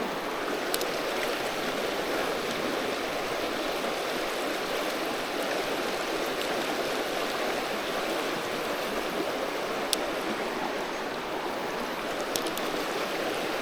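Creek water running over rocks: a steady rushing, with a few faint clicks along the way.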